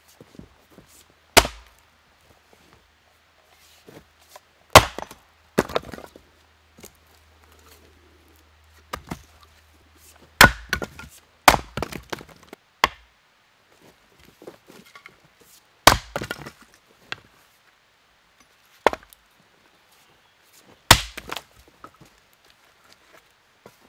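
Rinaldi Calabria 700 g axe splitting small logs on a chopping block: about nine sharp strikes into wood, a second to several seconds apart. Several strikes are followed by lighter knocks of split pieces landing.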